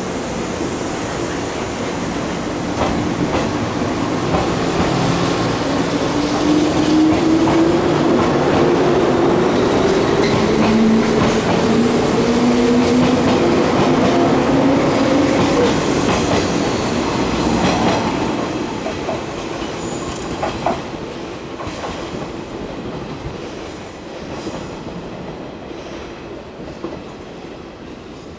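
Electric multiple-unit train pulling away past the platform, its motor whine rising in pitch as it speeds up, with wheels clacking over rail joints. The noise fades as the last cars go by.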